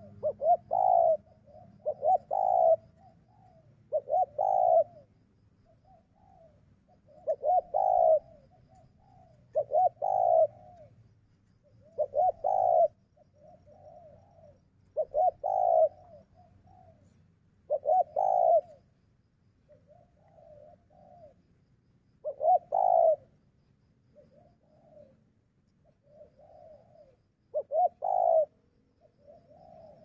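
Spotted doves cooing: a loud coo phrase repeated every two to three seconds, with fainter coos between.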